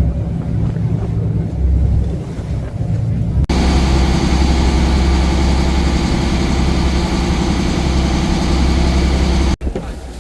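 Fishing boat's engine running with a steady low hum. About three and a half seconds in it jumps abruptly to a louder stretch of engine with rushing noise over it, which cuts off sharply near the end.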